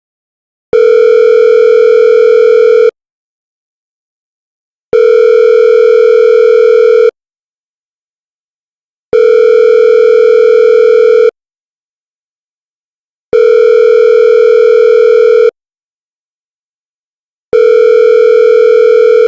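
Telephone ringback tone, the ringing a caller hears while the call connects. A steady beep-like tone sounds for about two seconds, then stops for about two seconds, repeating five times.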